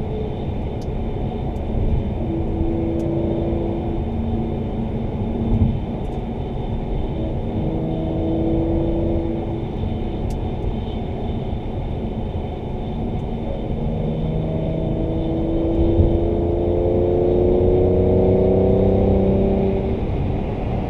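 2017 Mercedes-AMG C43's twin-turbo 3.0-litre V6 with AMG performance exhaust, heard from inside the cabin while driving. The engine note holds steady in places and climbs under acceleration, with the longest and loudest rise in pitch over the last several seconds.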